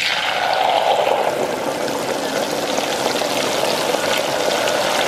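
Breaded lobster tail deep-frying in an electric deep fryer: the hot oil bubbles and sizzles loudly and steadily around the freshly lowered basket.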